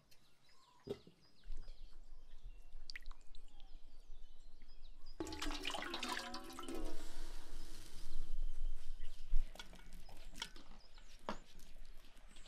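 Water pouring and splashing into a metal bowl as blackberries are rinsed by hand, with scattered drips and small splashes. The pour grows louder about five seconds in.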